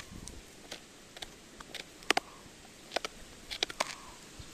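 Shiba Inu gnawing on a sika deer bone: irregular sharp cracks and crunches of teeth on bone, the loudest about two seconds in and a quick run of them near three and a half seconds.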